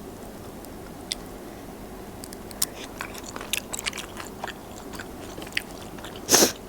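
Close-miked chewing and biting of food, with scattered small clicks and crunches and a louder short noise near the end.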